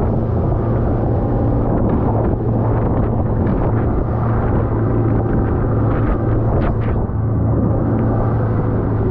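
Boat's outboard motor running steadily at cruising speed: a constant low hum under a rushing noise of wind and water against the hull.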